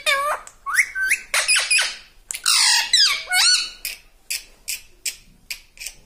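Indian ringneck parakeet calling: a quick run of squawks and rising whistles, with one harsher, drawn-out screech about halfway through. Then comes a string of about five short, sharp clicks.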